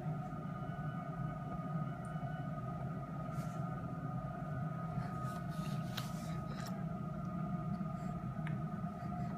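Steady low room hum with a faint high whine, broken by a few soft clicks.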